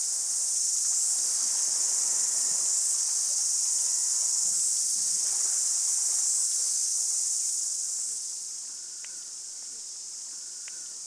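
Chorus of cicadas: a loud, steady, high-pitched buzzing that eases off noticeably about eight seconds in.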